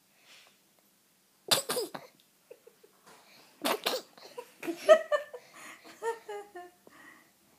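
Baby's laugh: two sharp breathy bursts, then a quick run of choppy 'gik' notes stepping down in pitch.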